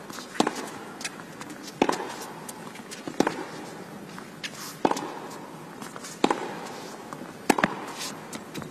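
Tennis rally: rackets striking the ball in turn, six sharp hits about every one and a half seconds, with fainter footfalls between shots.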